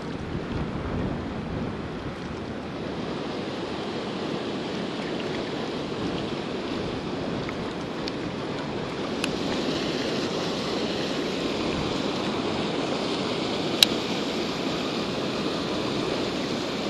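Water pouring over a spillway weir and churning the river, a steady rush, with wind on the microphone. One sharp click near the end.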